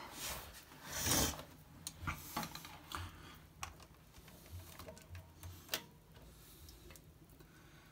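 Scattered clicks and knocks from handling the washing machine's drum housing, the loudest about a second in, growing sparser and fainter toward the end.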